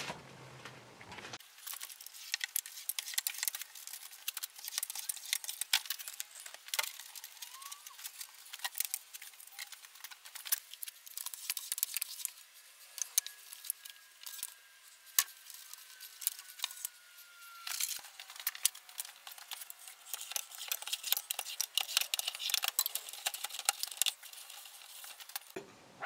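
Many quick small clicks, taps and light metallic clinks of hand work with a can-fed applicator gun, its trigger and fittings being worked and handled.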